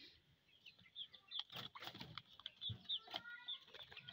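Quick, faint high chirps of small birds, mixed with scattered sharp knocks and scuffling as a stick prods a rooster in a wooden and wire coop.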